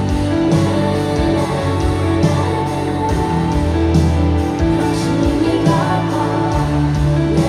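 Pop song performed live, with a woman singing into a stage microphone over the music.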